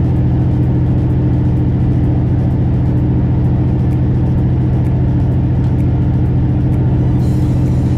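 Detroit Diesel Series 60 12.7-litre inline-six diesel in a semi truck, its turbocharger and exhaust manifold newly replaced, running at a steady pitch under load while climbing a mountain grade, heard from inside the cab. A faint hiss comes in near the end.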